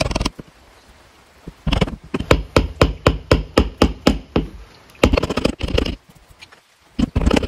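Wood chisel scraping and paring the edge of a wooden door frame in quick repeated strokes, about five a second, trimming the frame for repair; a longer run of scraping follows about five seconds in, and more strokes come near the end.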